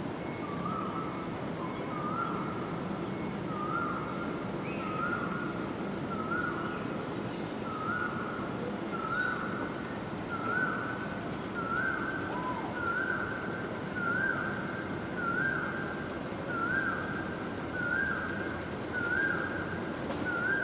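A bird whistling the same two-part note over and over, about once every second and a bit: a quick upslur then a held tone, creeping slightly higher in pitch as the series goes on. A steady low rumble of wind lies underneath.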